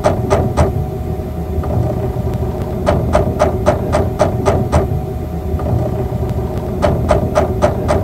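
LG refrigerator's three-way refrigerant valve operating: rapid rattling clicks, about five a second, in bursts of roughly two seconds with pauses of about two seconds between, over a steady low hum. This is the valve's normal operating sound as it opens and closes to redirect refrigerant between the compartments.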